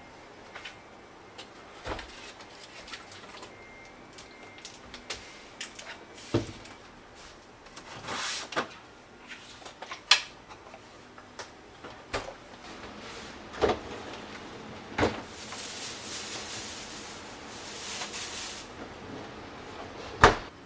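A refrigerator door and its pull-out drawer being opened and shut, with scattered clicks and knocks as containers are handled and a few stretches of sliding hiss.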